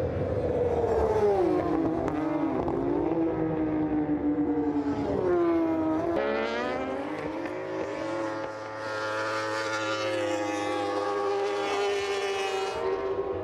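Racing superbike engines at high revs. The note drops as the bikes brake into a corner, then climbs steeply as they accelerate away. From about halfway a bike holds a high, fairly steady note at speed.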